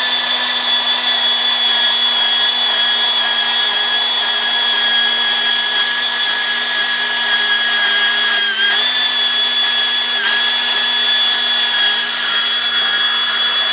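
Ridgid 500 pipe-threading power drive motor running steadily as it turns 2-inch gas pipe, with a steady whine and brief dips in pitch about eight and a half and ten seconds in.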